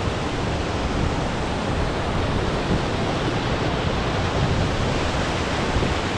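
Small waterfalls and a stream rushing steadily into rock pools, a constant even roar of falling water.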